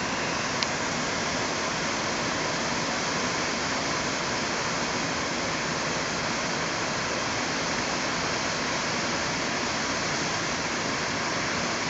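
Waterfall in flood, swollen by heavy rain: a steady, even rush of whitewater pouring over the falls and churning in the pool below.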